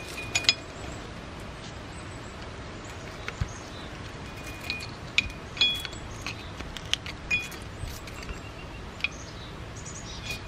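Scattered small metallic clinks and ticks, a few with a brief ringing tone, as a tool rocks a corroded ABS wheel-speed sensor back and forth in the front steering knuckle to break it loose.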